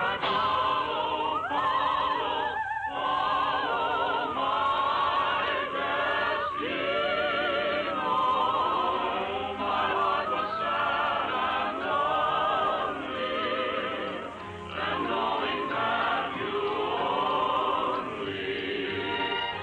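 Music: a choir singing long, operatic lines with wide vibrato. There are brief breaks about three seconds in and near fifteen seconds in.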